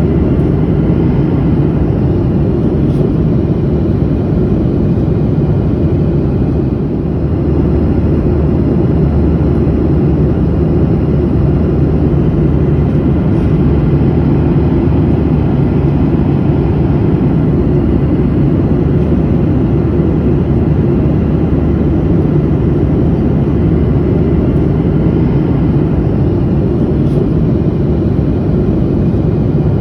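Steady cabin noise of a jet airliner in flight, heard from inside the passenger cabin: a deep, even rush of engine and airflow with a low hum underneath, dipping slightly about seven seconds in.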